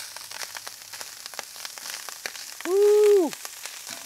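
Rice popping and sizzling on a hot Camp Chef flat-top griddle: a steady crackle of many small pops over a hiss, the sign that the griddle is still too hot even though it is turned down to low. About three seconds in, a short, loud pitched squeal rises and falls for about half a second.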